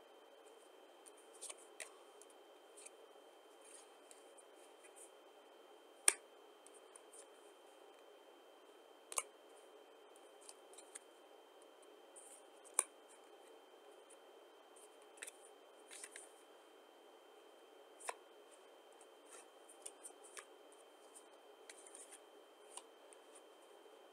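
Playing cards being handled and laid down: irregular soft snaps and flicks of card against card, with a few sharper clicks scattered through, over a faint steady hiss.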